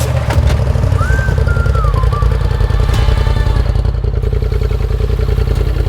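A vehicle engine running under load, a dense, rapid low pulsing, with a few sliding higher tones over it between about one and two seconds in.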